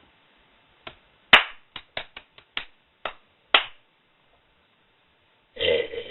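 A quick, irregular string of about nine sharp hand claps and smacks, then a long burp begins near the end.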